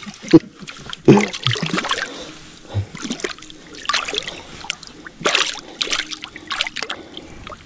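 Shallow lake water splashing and sloshing in short, irregular bursts.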